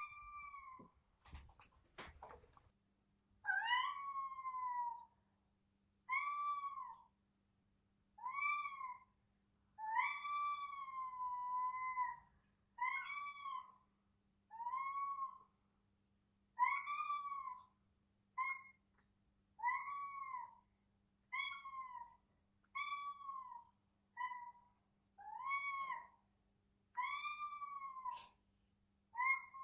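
A domestic cat meowing over and over in complaint: about fifteen meows roughly every second and a half, each rising then falling in pitch, one near ten seconds in drawn out longer than the rest. A few sharp clicks come in the first couple of seconds, and a faint steady hum runs under the meows.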